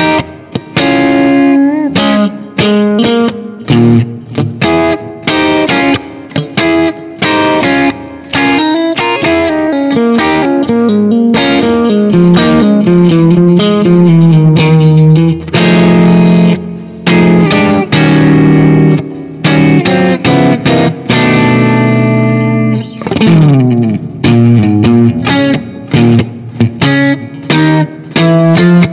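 Electric guitar playing a fusion lead line: short, choppy phrases of picked notes, some longer held notes around the middle, and a run sliding down in pitch about three quarters of the way through.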